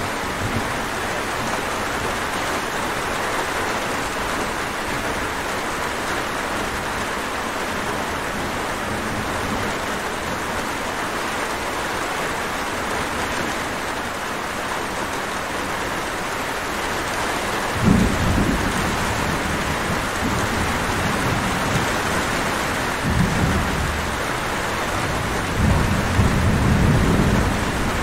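Steady rain falling, with low rolls of thunder. The first starts suddenly about two-thirds of the way through, a shorter one follows, and a longer rumble comes near the end.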